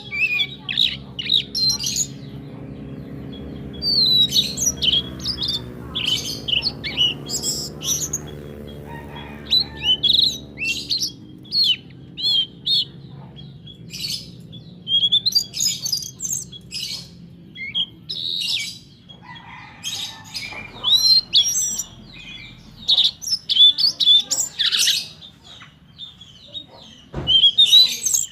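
Birds chirping in quick short calls over and over, with a low steady hum underneath that fades out about ten seconds in.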